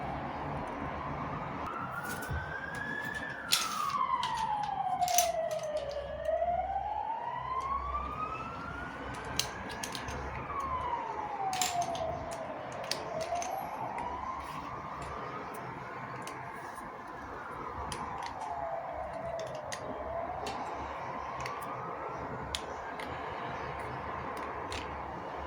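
A siren wailing slowly up and down, rising and falling about four times. Scattered sharp clicks are heard over it.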